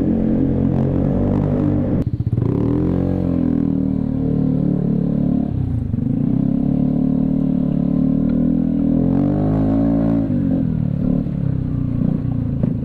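Vespa scooter engine running through a Prospeed aftermarket exhaust while riding. The revs rise and fall with the throttle, dropping sharply about two seconds in, then climb and fall several more times.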